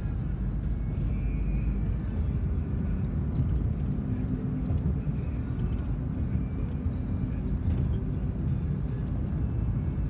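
Steady low rumble of a car moving at highway speed, road and engine noise heard from inside the car. A faint steady hum joins about four seconds in.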